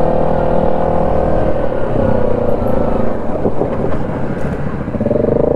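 ATV engine running at trail speed. Its steady engine tone breaks up into a rougher sound through the middle and comes back near the end.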